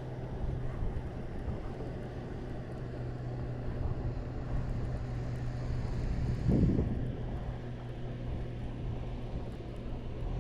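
A boat motor's steady hum with wind on the microphone, and a single knock about six and a half seconds in.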